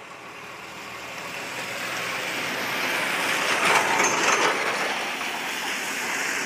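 A vehicle passing on a wet road: its tyre hiss swells to a peak about four seconds in, then eases off.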